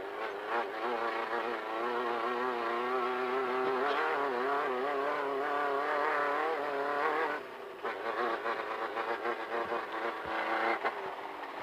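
Off-road race car's engine running hard, its pitch wavering up and down. About seven and a half seconds in it drops off as the throttle lifts, then revs up and down in short, uneven pulses.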